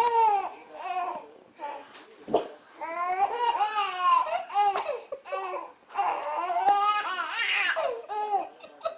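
Baby laughing hard, in three long fits of giggles and squeals with short breaks about two and six seconds in.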